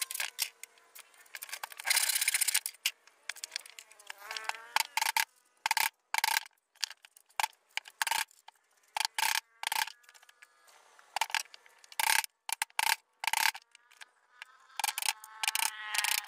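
A large handsaw cuts wood with a few strokes near the start. Then comes a long run of hammer blows driving nails into a wooden frame, about one or two a second, each with a short metallic ring.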